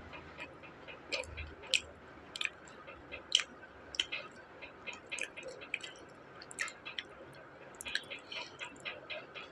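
Close-miked chewing of a fried onion pakoda (onion fritter): wet mouth clicks and smacks at an irregular pace, a few of them sharp and loud.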